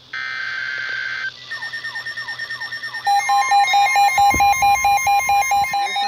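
Handheld NOAA weather radio sounding a warning alert: first a burst of data tones lasting about a second, then a quick string of falling chirps, then a loud alarm beeping about four times a second over a steady warning tone. Handling rumble can be heard briefly about four seconds in.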